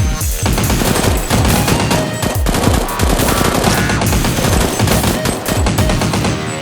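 Rapid, continuous machine-gun style gunfire, loud throughout, with music underneath.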